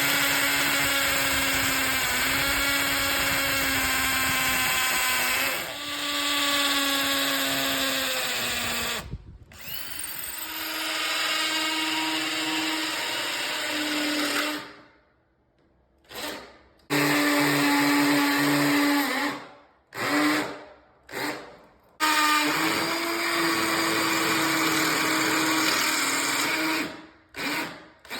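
Power drill running in long steady runs, drilling through a toilet flange into the concrete floor beneath the tile. The motor stops and starts again several times from about nine seconds in, with shorter bursts and pauses toward the end.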